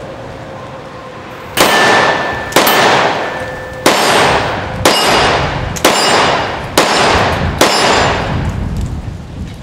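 Seven shots from a Ruger SR1911 Officer-style compact .45 ACP pistol firing Cor-Bon 165-grain +P Powerball rounds, about one a second, starting a little over a second in. Each sharp report is followed by a long ringing decay.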